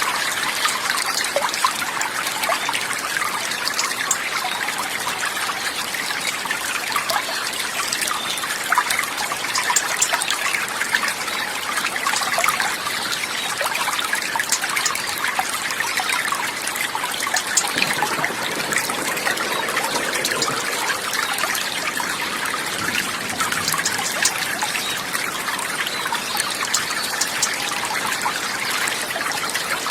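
Water trickling and splashing steadily, a continuous bubbling hiss with many small drips and splashes.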